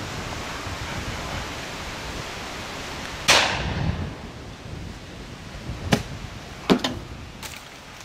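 Shotgun shot about three seconds in, with a rolling tail as it dies away, followed by a few quieter, sharper shots over the next few seconds. A steady rush of wind on the microphone runs underneath.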